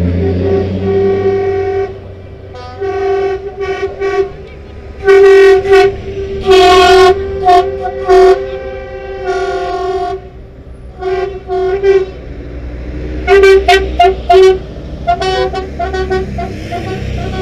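Truck air horn sounding a string of short toots and longer blasts of about a second, loudest in the middle and near the end, over the low running of diesel lorry engines.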